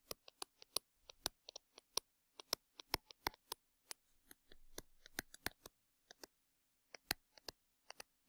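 Stylus tapping and scratching on a drawing tablet while handwriting words: a faint run of sharp, irregular clicks, several a second, with a short lull about six seconds in, over a faint steady hum.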